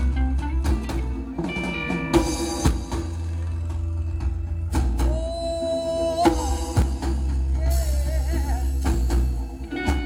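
Live roots reggae band playing: steady bass line and drum kit hits under a held, then wavering, melodic line that is sung or played.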